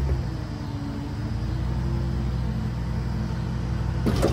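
Hydraulic Dynamic self-loader wheel-lift on a Ford F450 tow truck being lowered, with the truck's 6.8-litre V10 running the pump: a steady low hum with a faint tone above it, and a sharp clunk near the end.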